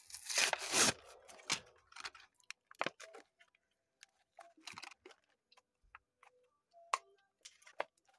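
Cardboard backing of a diecast-car blister pack torn open by hand: a loud rip in the first second, followed by scattered crinkles and clicks of card and plastic being pulled apart.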